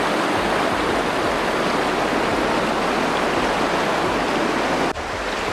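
Fast river riffle rushing over rocks, a steady dense rush of moving water; near the end there is a brief dip, and then it goes on slightly quieter.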